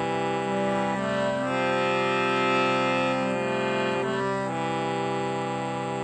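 Indian harmonium, a hand-pumped free-reed keyboard, playing a slow hymn tune in held, reedy chords that change every second or two.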